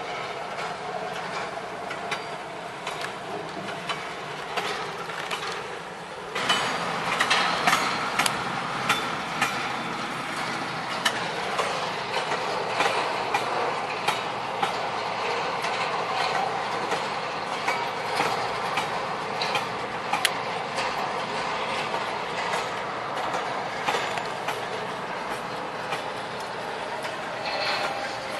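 Freight train wagons rolling past on the track: a steady rolling noise with frequent clicks and clanks, becoming louder and sharper about six seconds in.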